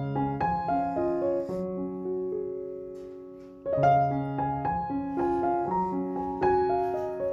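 Background piano music: a gentle melody over chords, with a held chord dying away before a new phrase begins just under four seconds in.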